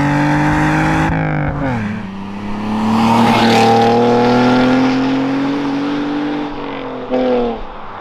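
BMW E46's straight-six through a cat-back exhaust with a Valvetronic Designs valved muffler, valves open, accelerating hard. The note climbs in pitch, drops with a gear change about a second in, climbs again, and drops with another shift near the end, fading as the car pulls away.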